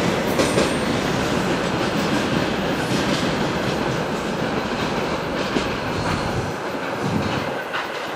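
Steel wheels of a freight train's tank wagons rolling and clacking over the rails as the last cars move away. The noise fades slowly, and its deep rumble drops away about six and a half seconds in.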